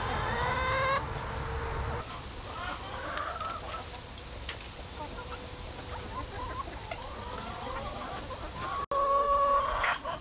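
A flock of chickens clucking and calling, with a loud drawn-out rising call about a second in and another loud held call near the end.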